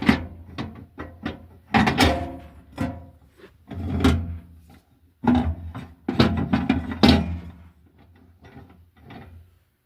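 Music with plucked, pitched notes, broken by several separate sharp knocks over a steady low hum.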